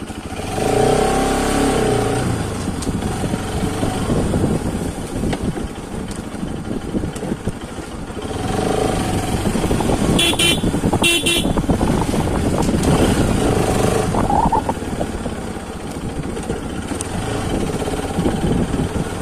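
Bajaj Pulsar RS200's single-cylinder engine riding at low speed, picking up revs near the start and twice more later. Two short horn beeps about ten seconds in.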